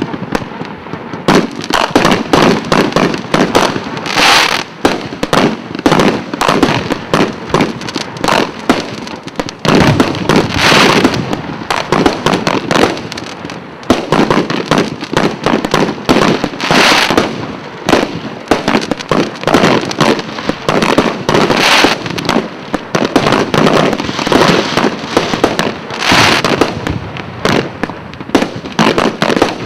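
A 36-shot fireworks cake firing: a rapid, continuous run of launch bangs and bursting shells that starts about a second in, with louder, fuller bursts about every five seconds.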